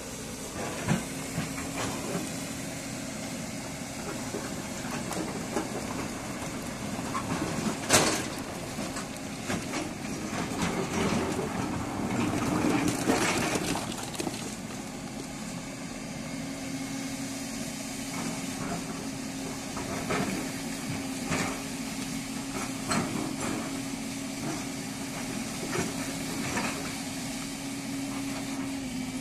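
Large hydraulic excavator working huge stones: its diesel engine runs steadily under a hiss, with a few sharp knocks of rock, the loudest about eight seconds in. The engine and hydraulics work harder and louder for a few seconds around the middle.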